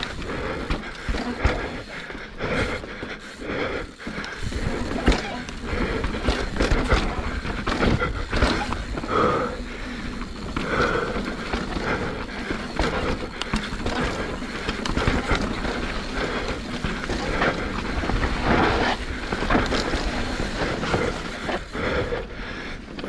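Mountain bike descending a rough trail: a continuous clatter of irregular knocks and rattles from the bike and its tyres hitting rocks and roots.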